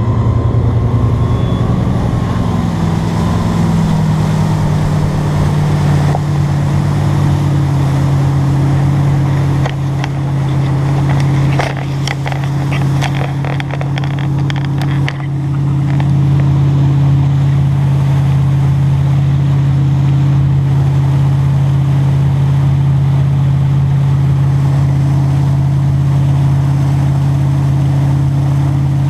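A wake boat's inboard engine is throttled up from a crawl as it pulls the surfer up. Its pitch rises over the first few seconds, then it runs steadily at surfing speed. A run of sharp knocks comes in the middle.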